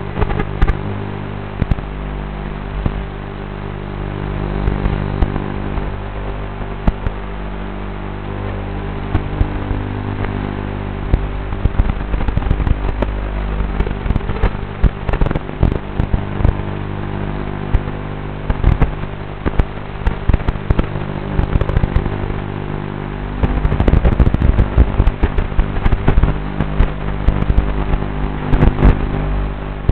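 Tiny whoop drone in acro flight, heard through its analog FPV video feed: a steady buzzing hum under frequent crackles and pops, which thicken after about 11 seconds and again from about 23 seconds.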